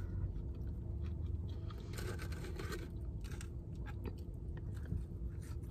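Close-up chewing of French fries, with small clicks and rustles of the paper fries carton as fingers pick more out, over a low steady hum.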